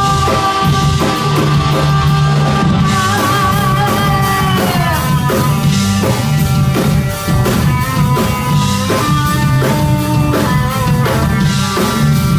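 Live rock band playing: electric guitar, bass and drum kit. A long held, wavering note slides down about four to five seconds in, and the band carries on over a steady drum beat.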